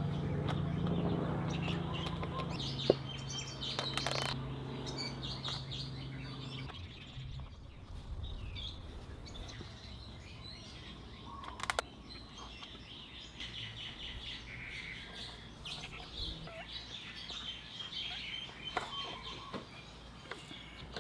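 Small birds chirping and calling in the background. A steady low drone stops about seven seconds in, and there are a few sharp clicks.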